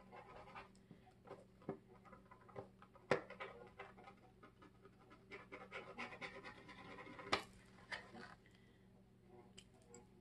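Faint scratching and light tapping of a feather quill dip pen's nib on paper during writing, with a couple of sharper clicks about three and seven seconds in.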